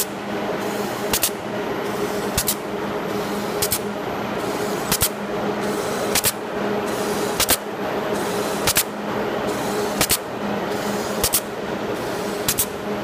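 Automatic adhesive labeling machine for long bags running: a steady motor hum, with a sharp click, often doubled, about every second and a quarter.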